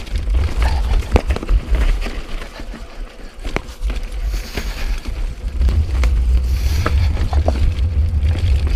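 Mountain bike descending a rocky track: tyres clatter over loose stones and the bike rattles, with sharp knocks as it hits rocks. Heavy wind rumble on the camera microphone grows louder about halfway through as the speed picks up.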